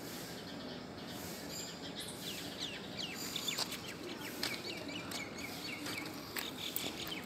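Small birds chirping: quick, high, falling chirps, thickening from about three seconds in.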